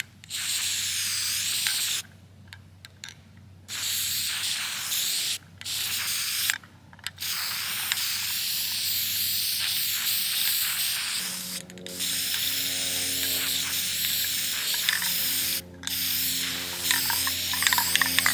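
Aerosol spray paint can hissing in bursts of a few seconds, with short pauses between them.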